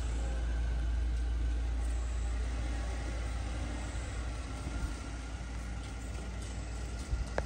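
Suzuki Alto's 660 cc three-cylinder engine running at low revs as the car creeps forward, a steady low rumble.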